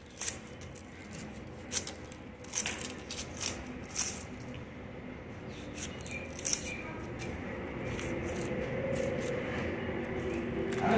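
A knife peeling red onions by hand: the blade scraping and the dry, papery onion skin crackling, in a string of short scrapes and clicks that thin out after about seven seconds.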